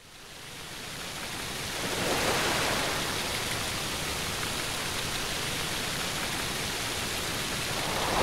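Steady rushing noise like running water, fading in over about the first two seconds and then holding even.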